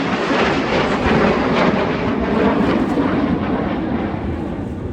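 Jet noise from a Red Arrows BAE Hawk T1 display jet flying past, a steady rushing sound that eases off slightly near the end.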